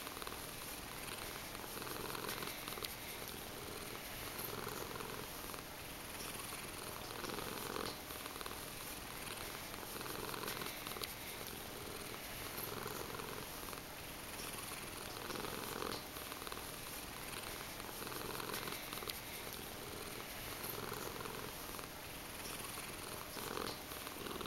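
Calico cat purring steadily while her head is stroked, the purr swelling and fading with each breath about every two seconds.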